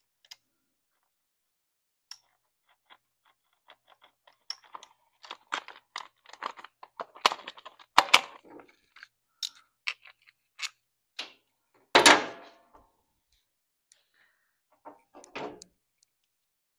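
Hand socket ratchet clicking in quick runs as bolts are backed out of the pit bike's chain guard. There are a couple of louder metal clanks, about eight and twelve seconds in, the second one ringing briefly.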